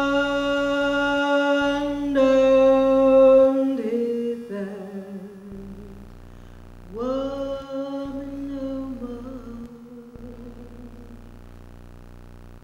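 A woman's voice singing unaccompanied into a microphone: a long held note that steps down into a short falling line, then, after a pause, a second phrase about seven seconds in that slides slowly lower and fades away.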